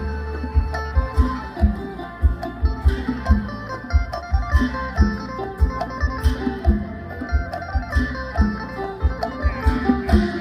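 Isan pong lang folk ensemble playing an instrumental passage: plucked-lute melody lines over a steady drum beat of about two strokes a second.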